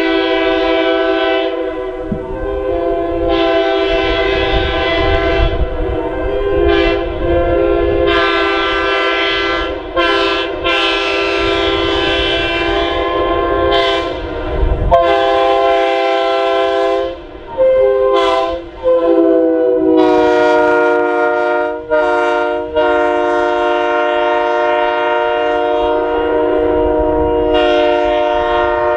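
Locomotive air horns blowing long multi-chime chords, several steady notes sounding together, with a few brief breaks after the middle and a change of chord about two-thirds of the way through.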